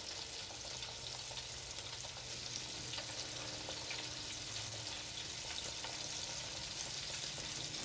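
Breaded pork chops deep-frying in an electric deep fryer, the oil heated to 350°F: a steady bubbling sizzle full of fine crackles.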